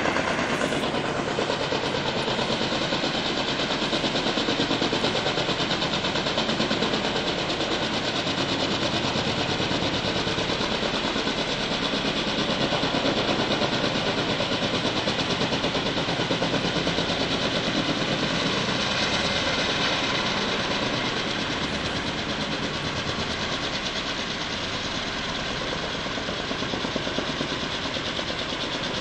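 Heavy-lift logging helicopter flying on a long line, its rotor blades beating fast and steadily over the turbine's noise. It gets slightly quieter about two-thirds of the way in.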